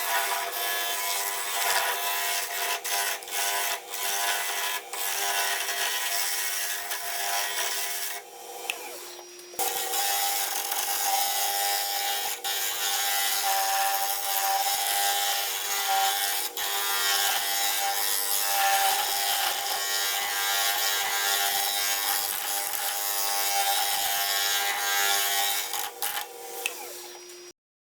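Wood lathe running with a steady motor whine while a turning tool cuts into a spinning wooden bowl blank, scraping and hissing, with a brief dip about eight seconds in. It cuts off abruptly near the end.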